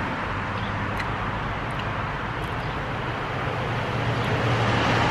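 Road traffic passing on a nearby street: a steady rush of cars, with a vehicle's hum growing louder toward the end as it approaches.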